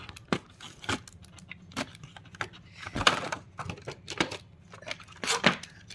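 A stationery kit being unpacked by hand: scattered clicks and taps with a few short rustles of packaging as a box of crayons is taken out.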